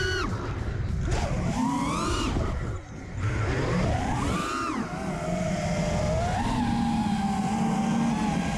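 5-inch FPV quadcopter's brushless motors and propellers whining, the pitch rising and falling sharply with throttle punches. About three seconds in the throttle briefly drops off, then the motors settle into a steadier hum with small pitch wobbles.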